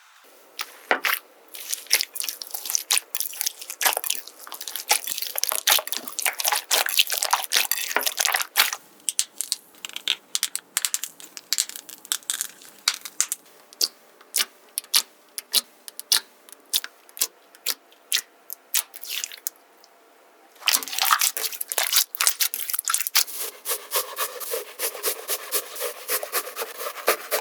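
Slime being squeezed and pressed by hand close to the microphone, giving a rapid run of wet, sticky pops and clicks. The popping thins out midway, stops briefly, then picks up densely again.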